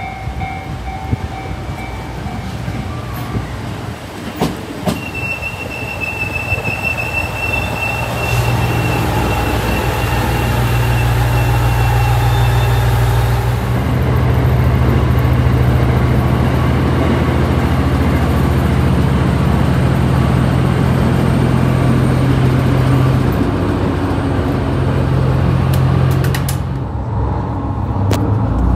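ET122 diesel railcar under way: wheels rattling on the rail, a high wheel squeal for a few seconds about five seconds in, then the diesel engine comes up to a strong, steady drone as it pulls, louder again about halfway through and easing back near the end.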